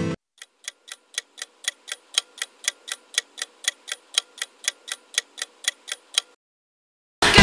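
Countdown-timer clock ticking sound effect: even ticks, about four a second, stopping about six seconds in. Music cuts in at the very end.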